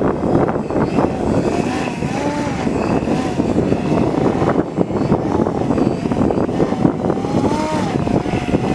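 Electric RC model airplane's brushless outrunner motor and 12x6 propeller whining in flight, the pitch rising and falling over and over with throttle changes, over heavy wind rumble on the microphone.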